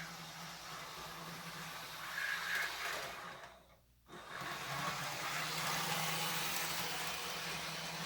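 Model train locomotive running along the track: a steady motor whir with wheel noise. It drops out almost completely for about half a second a little before halfway through, then resumes.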